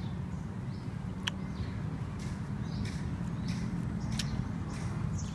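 Wet chewing and lip-smacking from eating juicy pomelo segments: short sharp clicks scattered over a steady low hum.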